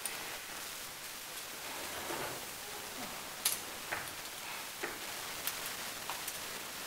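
A few sharp clacks and knocks over a steady hiss, the loudest about three and a half seconds in, from armoured heavy-combat fighters' rattan weapons and armour as they move and spar.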